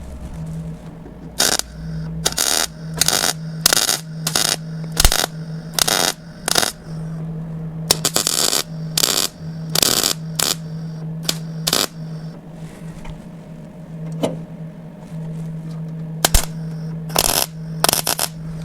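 MIG welder tack-welding steel sheet-metal panels: a series of about fifteen short bursts of arc crackle, each lasting a fraction of a second, with a steady low hum underneath.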